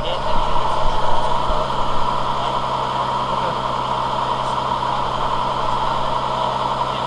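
A motor vehicle engine idling steadily with an even, unchanging hum.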